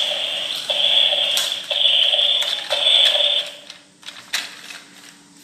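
Battery-powered toy dinosaur's electronic sound chip playing a shrill repeated tone four times, about once a second. It then stops, and a few sharp plastic clicks follow as the toy is handled.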